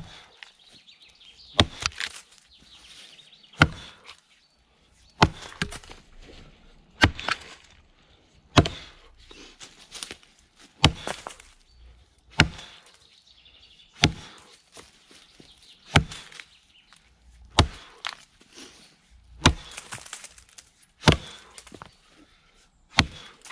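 Brades Tasmanian pattern axe chopping into a log: about fourteen sharp strikes of steel into wood, one every one and a half to two seconds, some followed by a lighter knock.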